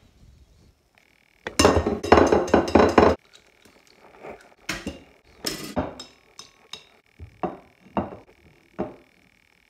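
Eggs being cracked and beaten in a bowl: a couple of seconds of rapid clinking, then a string of single sharp taps and clinks against the bowl.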